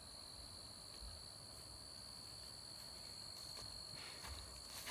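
Faint, steady high-pitched drone of insects singing in the field grass.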